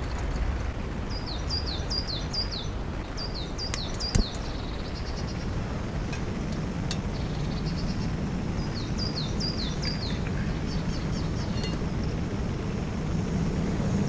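A songbird singing short phrases of quick falling notes, repeated every few seconds. A few sharp clicks sound about four seconds in, and a low steady rushing noise runs underneath from about five seconds on.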